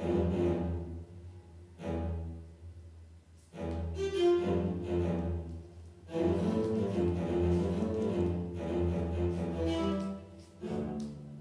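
Low-pitched cello sound triggered by a movement sensor on a dancer's ankle, coming in separate swells as the leg moves: short ones at the start and about two seconds in, then longer, shifting phrases from about three and a half and six seconds in.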